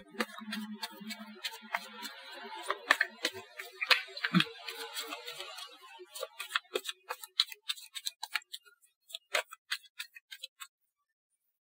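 Tarot cards being shuffled by hand: a dense run of rapid clicks and rustling for about six seconds, then sparser separate card clicks that stop near the end.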